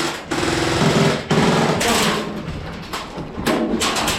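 Airsoft electric guns firing on full auto in rapid bursts, a dense clatter of shots over the whir of the gearbox, with short breaks between bursts.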